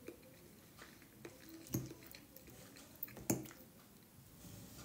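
Metal fork clinking and scraping against a bowl as food is picked up, a few short sharp clinks with two louder ones about halfway through, and quiet chewing in between.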